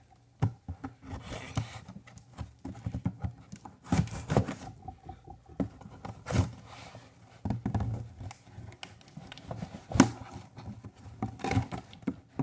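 Folding multitool knife being handled over a cardboard box: irregular clicks, knocks and short scrapes, the loudest knock about ten seconds in. Near the end the blade starts cutting into the box.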